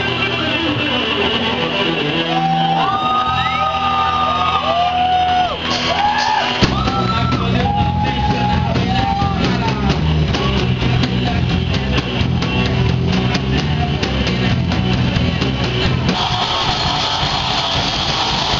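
Live rock band playing through a PA: electric guitars, bass and drums. A passage of long held, bending notes gives way about six and a half seconds in to the full band with drums and bass pounding in.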